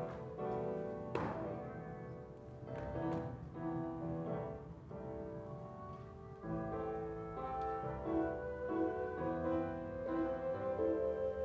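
Classical music playing, with layered held notes under a moving melody.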